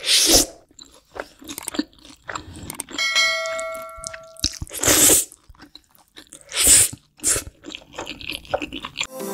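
Close-miked eating of black bean sauce noodles: three loud slurps, one at the start, one about five seconds in and one shortly after, with smaller chewing and mouth sounds between. A bell-like chime sound effect of several ringing tones comes in about three seconds in and lasts about a second and a half.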